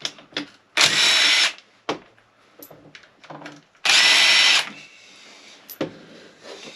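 Handheld power driver run in two short bursts about three seconds apart, with a steady whine in each, likely spinning a fastener as parts come off a motorcycle engine on the bench. Short metallic clicks and clinks of tools and parts fall between the bursts.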